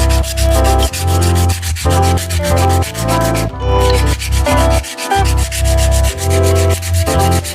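Electronic background music with a pulsing bass beat, over a fast, even abrasive rubbing of sanding on metal that breaks off briefly about halfway through.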